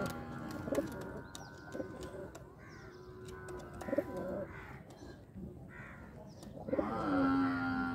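Punjabi pigeons cooing in short, low calls, with light clicks. Near the end a long, steady low drawn-out call rises in and holds.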